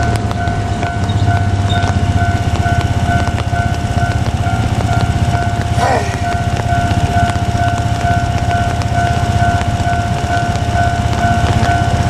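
Japanese level-crossing alarm ringing its steady, evenly repeating electronic tone, over a low rumble as a JR Kyushu KiHa 47 diesel railcar approaches.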